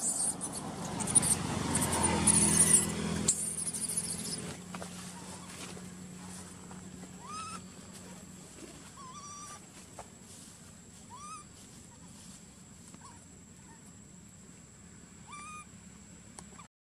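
Baby long-tailed macaque giving short, thin whimpering calls, about five of them a couple of seconds apart, each rising and then holding; the begging cry of an infant wanting to nurse. A louder noisy rumble at the start dies away over the first few seconds.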